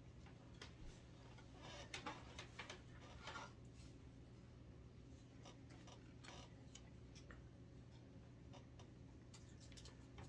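Near silence: a faint steady room hum with scattered light clicks and rustles from items being handled, a small cluster of them about two to three and a half seconds in.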